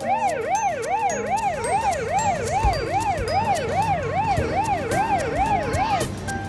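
Electronic toy siren wailing, its pitch rising and falling quickly and evenly about two and a half times a second, then cutting off near the end, over the light clatter of a play area.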